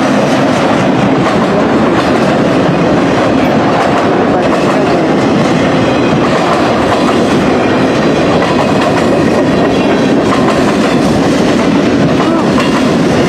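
Long CN mixed-freight manifest train passing close by: the steel wheels of the freight cars run on the rails with a loud, steady rumble.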